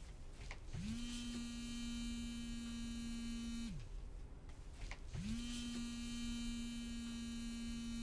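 A mobile phone vibrating for an incoming call: two buzzes of about three seconds each with a short gap between them. Each buzz rises in pitch as the motor spins up and drops as it stops.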